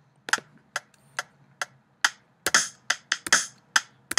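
Reason 6 sequencer's metronome clicking a four-beat count-in at 140 BPM, the first click accented, then going on clicking while snare drum samples from a ReDrum disco kit come in by hand from about two and a half seconds in, a little off the beat.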